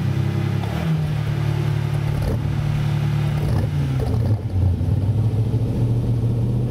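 Small open-top 4x4's engine labouring under load as it wades through deep muddy water, its note dropping a step about a second in and again around four seconds, with water splashing around the wheels.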